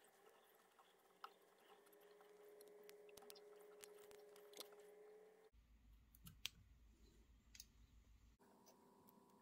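Near silence, with faint scattered clicks and rustles of sparkle yarn and thread being handled and wrapped on a hook in a fly-tying vise.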